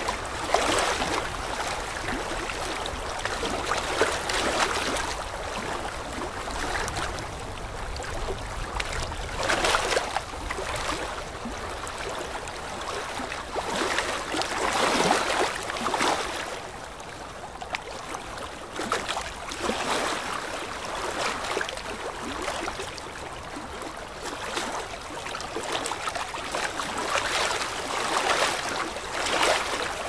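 Aquarium aeration: air bubbling up from an air stone and sponge filters, a steady gurgling water noise that swells and eases every few seconds.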